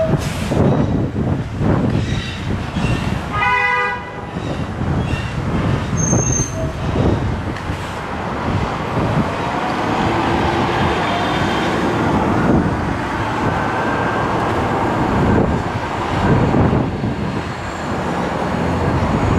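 Wind buffeting the microphone during an electric scooter ride through city traffic, with a brief vehicle horn toot about three and a half seconds in.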